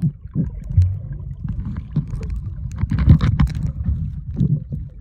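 Muffled sea-water noise heard by a camera held underwater while snorkelling: a low rumble with scattered clicks and knocks, busiest about three seconds in.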